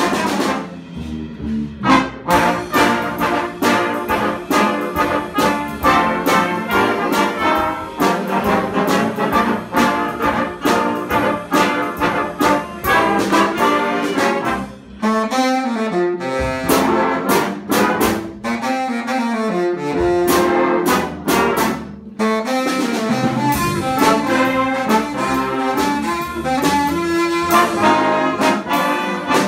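A big band playing jazz: saxophones, trombones and trumpets together with piano, in punchy ensemble hits. The bass drops out for a few seconds past the middle, and there is a short break in the band a little after that.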